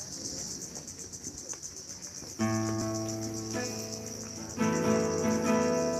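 A steady, high-pitched insect chorus, joined about two and a half seconds in by music: sustained chords that change twice.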